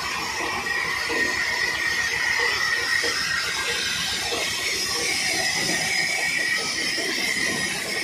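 Sawmill machinery running steadily, with a sustained high whine over a fast, even low rattle.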